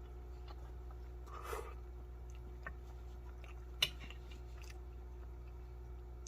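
A person chewing spicy stir-fried ramen noodles, with a brief louder noisy sound about a second and a half in and a single sharp click just before four seconds, the loudest moment.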